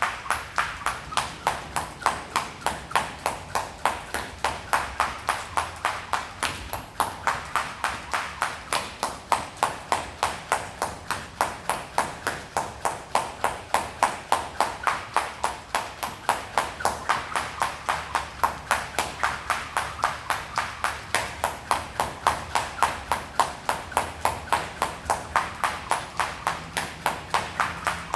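A jump rope skipped at a steady boxing rhythm, the rope slapping the floor about three to four times a second without a break.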